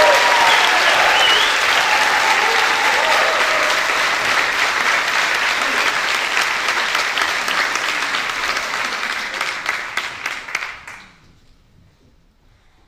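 Audience applause with a few shouts in the first couple of seconds. It thins to scattered claps and dies away abruptly about eleven seconds in.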